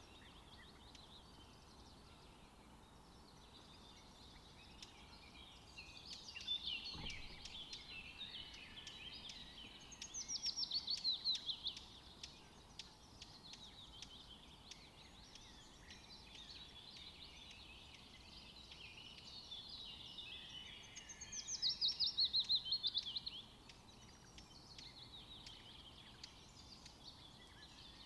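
Woodland birdsong: small songbirds chirping and twittering throughout, with a loud, fast trilled song of rapidly repeated falling notes twice, about ten seconds apart.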